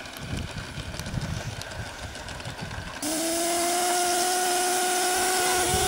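Live-steam garden-scale model locomotive letting off steam. About three seconds in, a loud steady hiss starts suddenly with a steady whistling tone in it and holds on.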